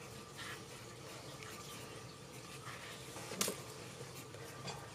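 Quiet room tone with a few faint ticks and one sharper click about three and a half seconds in.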